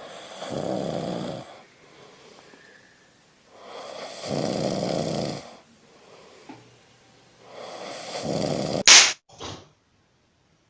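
A person snoring loudly: three long snores, about one every three and a half seconds. Near the end comes a brief sharp hiss-like burst, the loudest sound, then silence.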